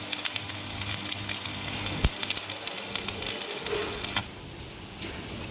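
Electric arc welding: a dense crackle of rapid sputtering clicks that stops suddenly about four seconds in as the arc is broken.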